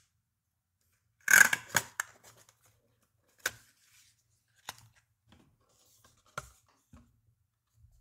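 Cardboard packaging being handled by hand: a quick burst of scraping and rustling about a second and a half in, then a few scattered light taps and rustles.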